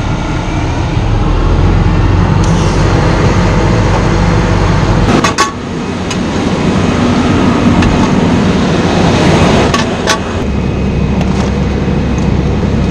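Fire engine's diesel engine running steadily at close range, a loud, low drone, with brief sharp knocks about five and ten seconds in.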